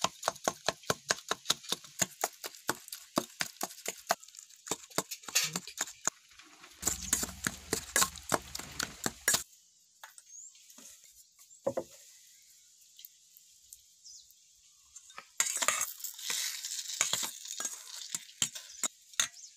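A stainless steel spatula clinks and scrapes against a stainless steel bowl while mashing roasted eggplant and tomatoes by hand. It strikes quickly and sharply, about four times a second, for the first half, then goes quiet for a few seconds. Near the end comes a stretch of continuous scraping and squishing.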